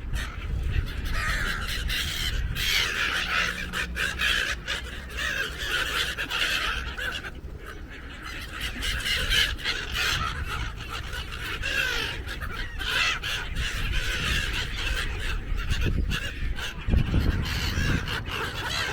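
A large flock of seagulls calling constantly, with many harsh cries overlapping into a continuous chatter while they swoop for thrown food.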